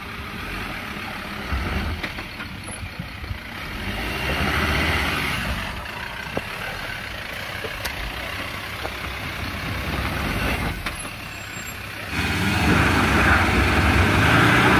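Troller T4's diesel engine running at low revs as the 4x4 crawls slowly down a rutted dirt trail, growing louder about four seconds in and again near the end.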